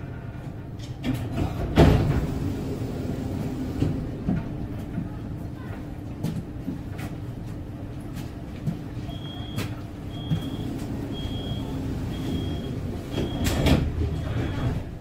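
Solaris Tramino tram's steady running hum with a loud knock about two seconds in. From about nine seconds a door-closing warning beeps six times, about once a second, and the sliding doors clatter shut near the end.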